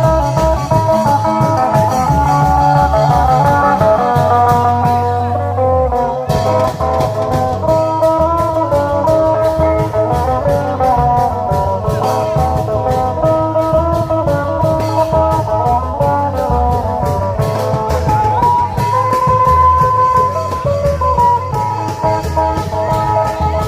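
Isan klong yao long-drum procession band playing: a busy melody line over a steady, driving drum beat.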